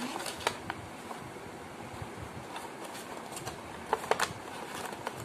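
Folded stiff paper crinkling and rustling as it is handled and pressed. The crackles come scattered, with a louder cluster about four seconds in, over steady background noise.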